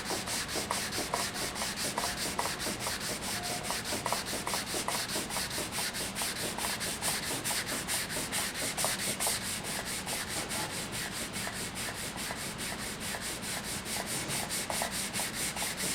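Hand wet-sanding the cured finish on the outside of a wooden stave drum shell, using sandpaper wrapped around a flexible rubber pad. It is a steady rasping rub in quick, even back-and-forth strokes.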